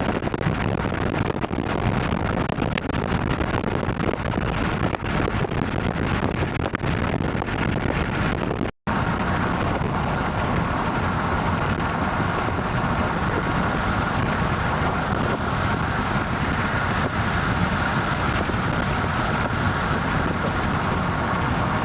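Steady rushing wind noise buffeting the microphone, broken by a brief total dropout about nine seconds in.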